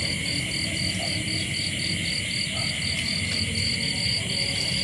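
Night chorus of crickets and other insects: one high chirp pulsing steadily about five times a second over a continuous high trill.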